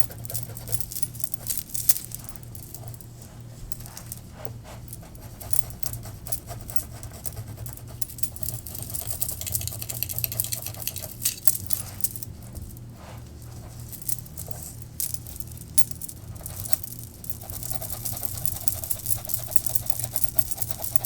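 Fingers rubbing and massaging oil into hair and scalp close to the microphone: a dense, irregular run of soft crackles and scratchy ticks over a steady low hum.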